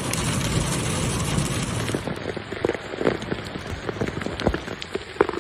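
Hail pelting a car, heard from inside the cabin as a dense, steady clatter; about two seconds in it gives way to scattered sharp hits of single hailstones.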